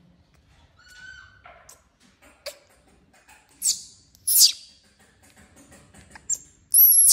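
Newborn baby monkey crying in high, shrill squeaks. Two short cries fall in pitch, then a brief one, and near the end comes the loudest and longest cry.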